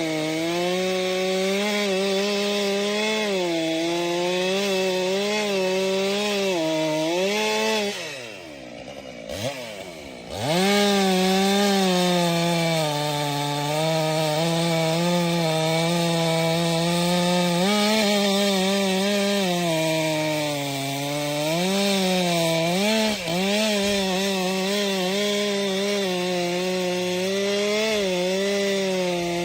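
Stihl MS 462 C-M two-stroke chainsaw running at high speed under cutting load through firewood, its pitch sagging and recovering as the chain bites. About eight seconds in the throttle is let off and the engine drops toward idle. About two seconds later it revs sharply back up and keeps cutting.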